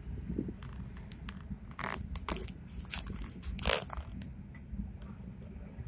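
Steady low rumble inside a moving vehicle's cabin, overlaid by scattered crackles and clicks of a phone being handled against the dashboard; the loudest is a short scrape about two-thirds of the way through.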